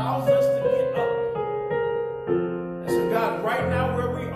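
Yamaha MOXF keyboard holding sustained chords that change twice, with a man's voice singing over it at the start and again near the end.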